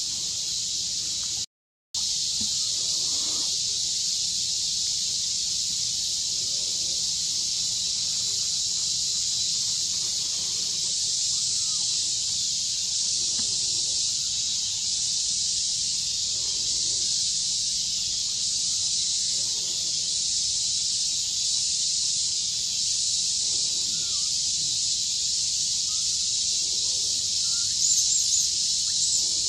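Steady high-pitched chorus of insects in the trees, with a brief cut to silence about a second and a half in. Near the end a few short high squeals rise above it.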